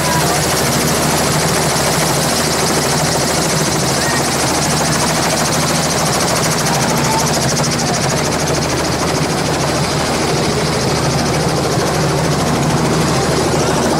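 Helicopter running on the ground close by: a steady, loud engine and rotor noise with a rapid, fine chop.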